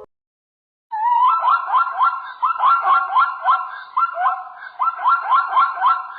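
An animal calling in a rapid series of short, rising squeals, about three a second, starting about a second in after a brief silence.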